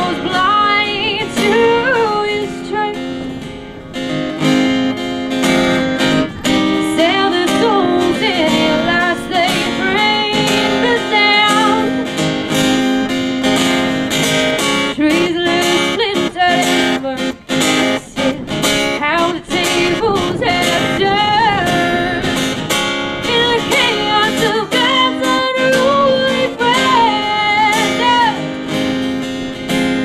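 A woman singing to a strummed acoustic guitar.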